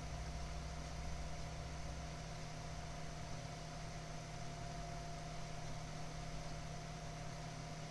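Desktop PC running with its case open: the stock Intel CPU cooler fan and the other fans give a steady hum with a low drone that is a little heavier for the first two seconds.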